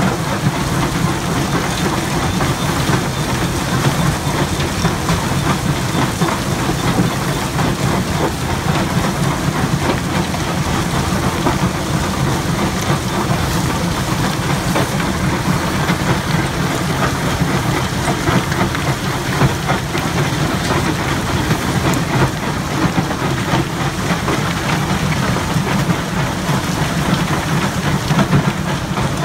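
Crushed rock clattering steadily off a Syntron SyntroFlo vibratory feeder pan into a Sandvik crusher, over the steady low hum of the running crushing plant.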